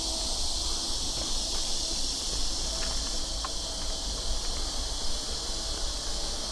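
Steady summer cicada chorus, a continuous high-pitched buzzing hiss, over a low rumble.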